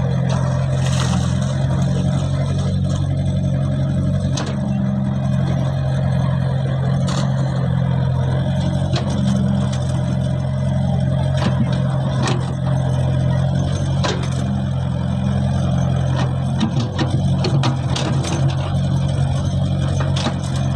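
Caterpillar E70B excavator's diesel engine running steadily under load as the bucket digs wet mud from a pond bank, with scattered short sharp clicks and knocks.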